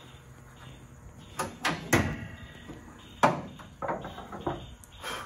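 Metal clunks and rattles of a 1983 Toyota pickup's hood being raised and its prop rod swung up and set in place. There are several sharp knocks, the loudest about three seconds in, then a cluster of smaller clicks.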